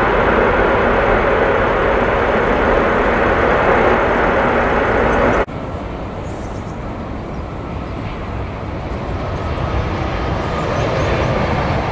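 Twin turbofan engines of a Boeing 787 Dreamliner running loud on the runway. About halfway through the sound cuts off abruptly, and the quieter jet noise of a second 787 moving along the runway slowly grows louder.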